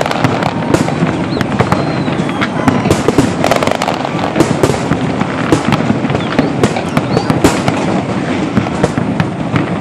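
Large aerial fireworks display: a dense, continuous barrage of bangs and crackles from shells bursting.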